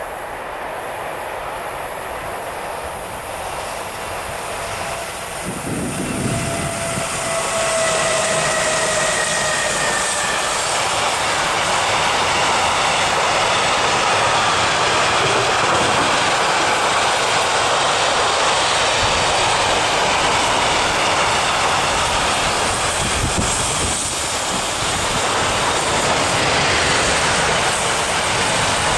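An intermodal freight train of truck-trailer pocket wagons, hauled by two DB class 185 electric locomotives, passing at close range with a steady rumble and rail noise. A high whine falls slightly over the first ten seconds. Near the end an SBB Re 4/4 electric locomotive with InterRegio coaches passes on the other track, and the two trains' noise overlaps.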